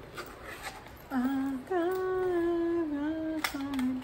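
A woman humming a slow tune to herself, starting about a second in, in long held notes that step up and down. A few faint clicks are heard as well.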